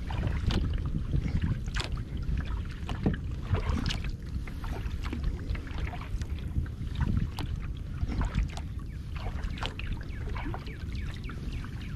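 Double-bladed paddle dipping and pulling through calm water beside a small solo canoe, with splashes and drips from alternating strokes. A low rumble of wind on the microphone runs underneath.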